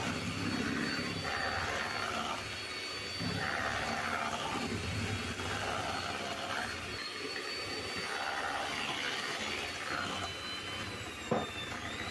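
Electric hand mixer running with a steady high whine, its beaters churning through creamed butter and sugar with egg in a stainless steel bowl, the sound swelling and fading every second or so as the beaters move around. A single sharp knock near the end.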